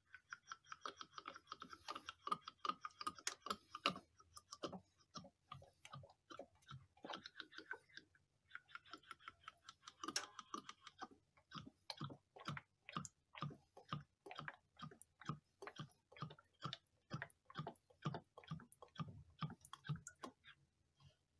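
Motor oil glugging out of a 4-litre plastic canister through a funnel into a car engine's oil filler: an uneven run of gulps, about two or three a second, with a brief lull about eight seconds in.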